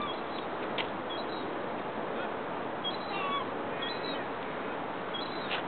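Birds calling in short honk-like chirps a few times over a steady hiss of background noise, with two brief clicks, one about a second in and one near the end.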